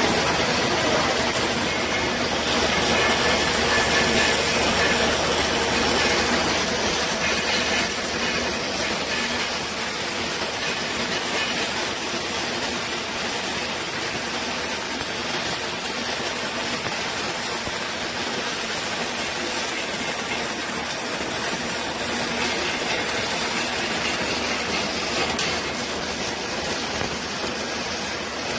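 MIG welding arc running continuously as a bead is laid, an even hiss, powered by a Multipro MIG-MAG 350H welding machine.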